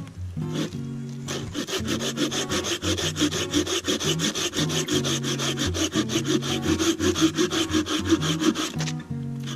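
Small hand saw cutting through a dry, bark-covered log in quick, even back-and-forth strokes. The strokes start about a second in and pause briefly near the end.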